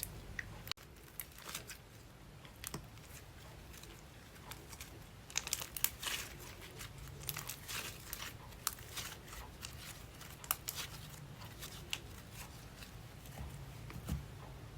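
Slime being worked by hand, giving irregular crackling and popping clicks that are busiest about five to eight seconds in.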